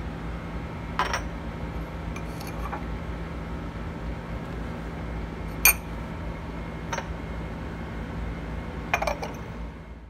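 Ceramic sugar bowl and metal spoon clinking a few times, short and sharp, the loudest a little past the middle, as the bowl's lid is taken off and the spoon handled. A steady low hum runs underneath.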